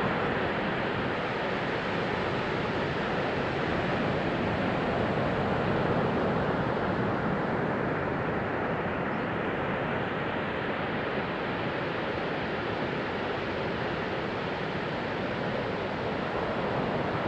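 Sea surf washing on a beach: a steady rushing wash of waves that swells and eases slowly, with no distinct crashes.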